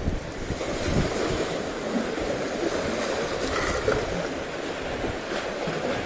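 Sea waves washing against concrete breakwater blocks, a steady surging wash with wind buffeting the microphone.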